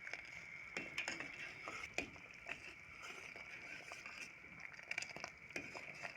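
Faint, irregular clicks and pops from a pot of thickening tamarind chutney cooking on the stove, over a steady faint hiss.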